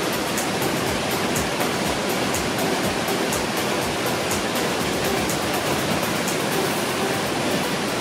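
Creek water rushing over a small cascade: a steady, even rush of falling and splashing water.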